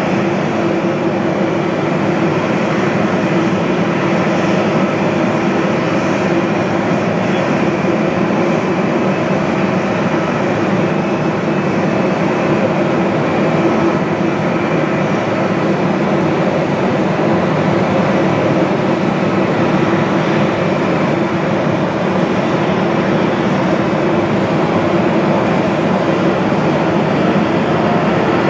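Airbus A340-300's four CFM56 jet engines running steadily, a loud even noise with several steady whining tones through it.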